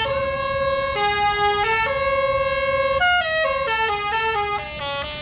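Bus's telolet basuri musical horn playing a melody: a string of clear held notes, each about half a second to a second long, stepping up and down in pitch.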